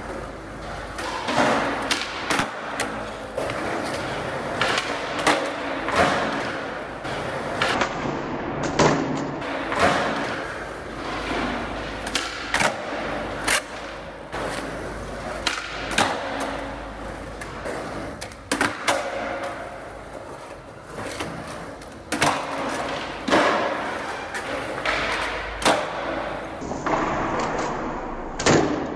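Skateboard on a smooth concrete parking-garage floor: wheels rolling, broken by many sharp pops, board clacks and landings from flat-ground tricks, with a loud pop and landing of a kickflip near the end.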